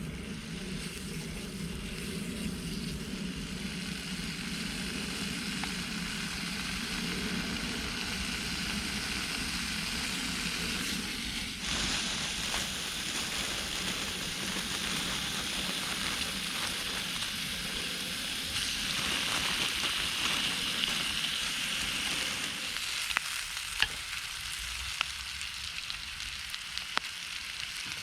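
Food sizzling as it fries, a steady hiss. A low hum runs under it for most of the time and stops about five seconds before the end, and a few sharp clicks come near the end.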